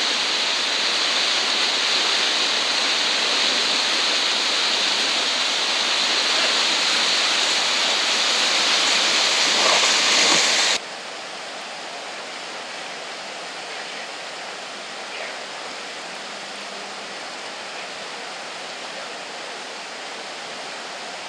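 Whitewater rapids rushing steadily, a dense hiss of churning water over rocks. A little over ten seconds in it drops suddenly to a quieter, more distant rush.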